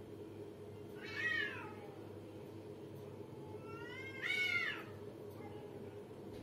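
Domestic cats in a face-to-face standoff, moaning at each other: a short yowl about a second in, then a longer one that rises and falls at about four seconds. This is the drawn-out warning yowl of a challenge between two cats.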